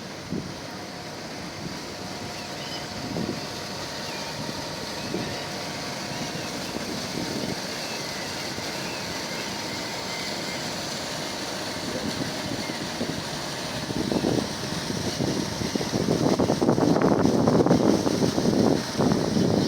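Wind buffeting the microphone over steady outdoor noise, the gusts growing stronger and rougher in the last few seconds.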